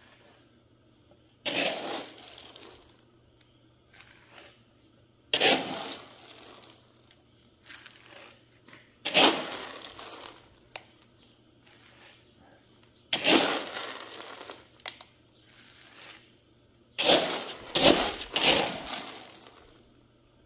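Handfuls of dry, red-coated soybean seed being scooped from a plastic basin with a plastic scoop and poured out in heaps onto a drying mat, each pour a short rush of spilling beans. This happens five times, about every four seconds.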